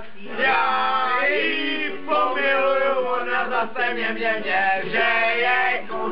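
Young men singing together, holding long notes.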